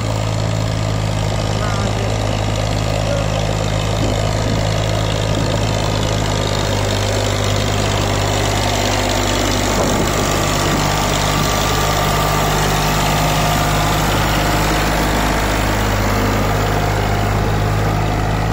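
Eicher tractor's diesel engine running steadily with an even low hum, its pitch holding constant throughout.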